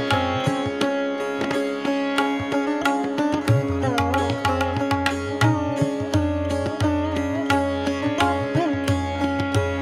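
Instrumental music: a plucked string instrument plays a melody of sliding, bending notes over a steady drone, with low drum strokes keeping a rhythm.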